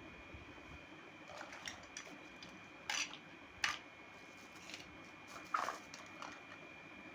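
Miniature plastic toy kitchen pieces being handled: scattered soft clicks and rustles, with three sharper taps about three, three and a half and five and a half seconds in.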